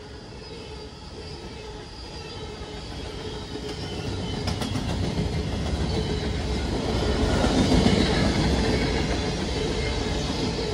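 Freight train passing at speed: covered hopper cars rolling by, a steady rumble of wheels on rail that grows louder to a peak about eight seconds in, with a faint steady whine throughout and a few clicks near the middle.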